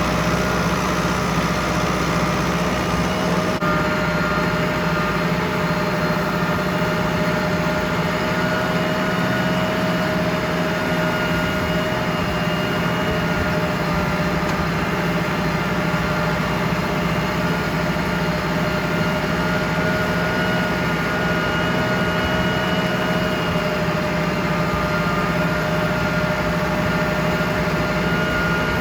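Ford 6610 tractor's diesel engine running steadily at a constant speed, with a small change in its sound about three and a half seconds in.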